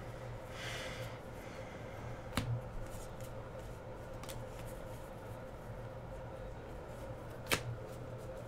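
Trading cards being handled: a brief rustle about a second in and two sharp clicks, one near the middle and one near the end, over a steady low hum.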